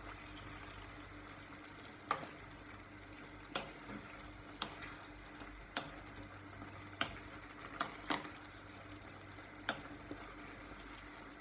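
Minced pork and sliced sausages frying in a non-stick pan with soy sauce just added, a steady sizzle as a wooden spatula stirs them, with the spatula knocking against the pan every second or so, about eight times.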